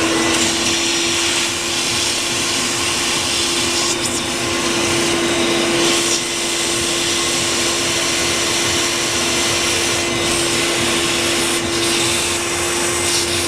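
Shop vac running steadily, sucking dust out of a desktop computer's case: a steady motor whine over the rush of air, with the hiss briefly growing louder a few times.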